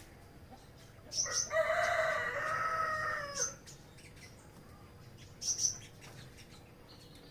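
A rooster crowing once, one long call of about two seconds that drops in pitch at the end, with short high chirps from small caged songbirds around it.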